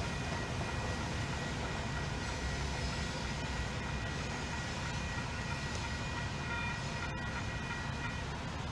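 A distant diesel train approaching: a low steady rumble, with faint steady high tones that stop near the end.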